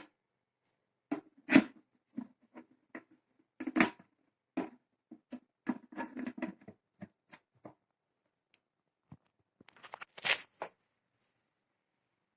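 Irregular clicks, knocks and rustles of objects being handled, with a louder scraping rustle near the end.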